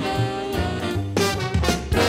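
Background swing music with a steady bass beat.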